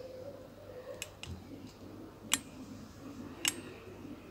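A few light, sharp clicks, about four in all and spaced irregularly, from hands at work with a tape measure on cloth.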